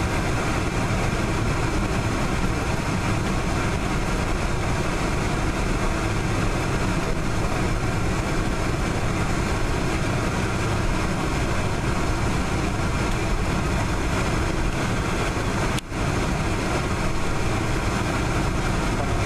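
Boeing 747-400 jet engines running at taxi power, heard inside the cabin over the wing as a steady rumble and hiss. The sound drops out for an instant near the end.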